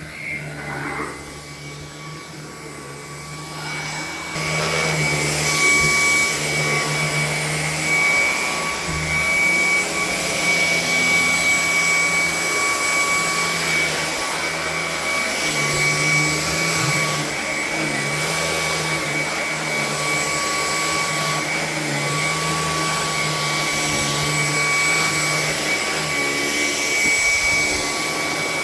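Hoover ONE PWR Emerge cordless stick vacuum cleaner running steadily, a motor hum with a high whine over rushing air; it gets louder about four seconds in and then holds level.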